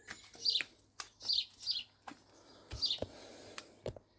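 A small bird chirping in short, high, falling calls, about four of them, with a few sharp clicks and knocks in between.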